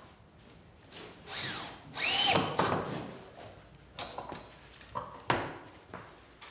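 Cordless drill driving screws into the wooden frame of a roof window, run in two short bursts about one and two seconds in; the second and louder one has a whine that rises and falls in pitch. A few sharp clicks and knocks follow.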